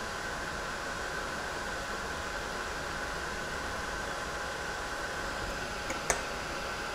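Ranger Heat It craft heat tool running steadily, blowing hot air with a faint steady whine as it melts copper embossing powder. There is a short click about six seconds in.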